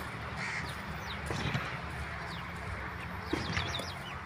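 Birds calling over a steady low rumble of wind on the microphone as a storm comes on, with a quick run of high chirps about three and a half seconds in.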